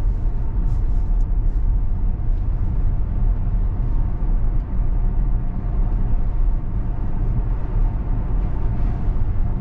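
Steady low rumble of road and tyre noise heard inside the cabin of a Tesla Model X driving on wet tarmac, with no engine sound, and a few faint ticks now and then.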